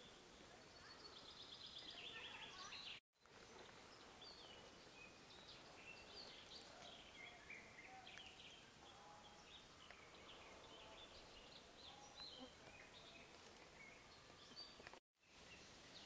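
Faint woodland birdsong: several songbirds chirping and singing over a quiet background, with a rapid trill about a second in. The sound cuts out completely for a moment twice, about three seconds in and near the end.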